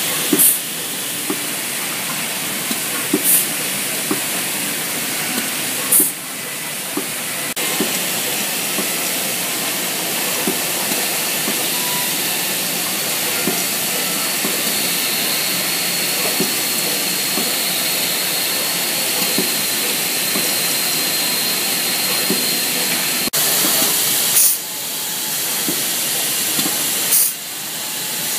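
Pneumatic insert-handling machinery running with a steady hiss and faint rattling of brass inserts in a vibratory bowl feeder. A few short, sharp blasts of exhausting compressed air break in at irregular intervals.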